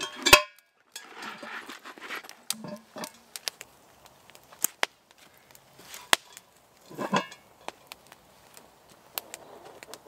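Cast iron Dutch oven handled. A sharp clank just after the start as it comes out of its carry bag, then rustling and a knock about seven seconds in as it is set down by the fire, with scattered sharp pops from the crackling wood fire.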